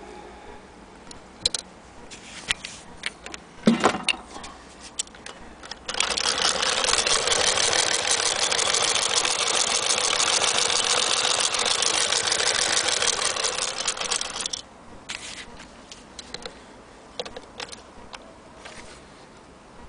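Antique hand-crank Vesta sewing machine running for about eight seconds in the middle: a fast, even mechanical clatter. Before and after it come scattered clicks and a knock from metal parts being handled.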